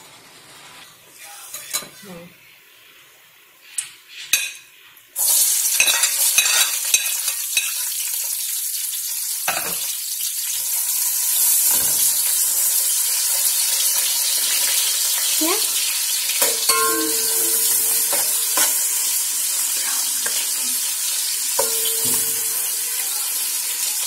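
Sliced onions dropped into hot oil in a steel pot, starting a sudden loud sizzle about five seconds in that keeps going steadily, the first stage of browning the onions. A metal slotted spatula stirs them, clinking and scraping against the pot; a few light clinks come before the onions go in.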